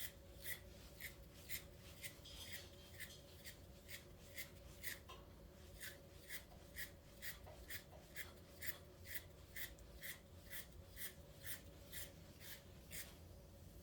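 Faint, rhythmic scratchy strokes of a hand-stripping tool pulled through a dog's hard, wiry coat, about two strokes a second, pulling out the loose dead hair of a coat that is blowing. The strokes stop shortly before the end.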